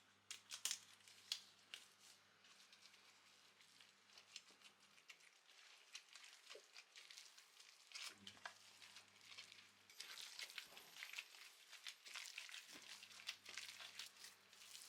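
Faint kitchen sounds: scattered small clicks and rustles, with a soft hiss that grows from about ten seconds in. A low electric hum comes and goes in the background.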